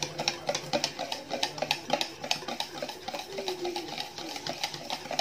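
Wire whisk beating whipped dalgona coffee (instant coffee, sugar and hot water) by hand in a stainless steel bowl: a fast, even clicking and scraping of metal on metal, about five strokes a second.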